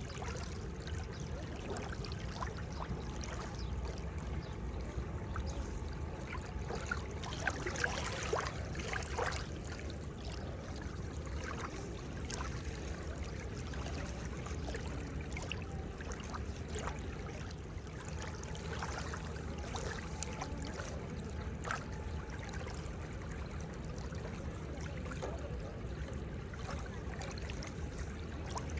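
Seawater washing and lapping at the shore: a steady wash with many small splashes and trickles, briefly busier about eight seconds in.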